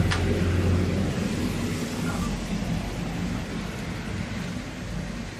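Street background noise: a low, steady rumble of traffic, with one sharp click right at the start.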